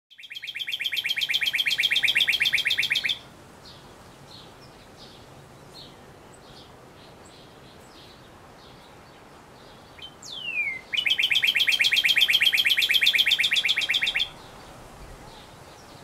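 Male northern cardinal singing: two long, loud, rapid trills of repeated notes, the second opened by a quick downslurred whistle, with faint short notes between them.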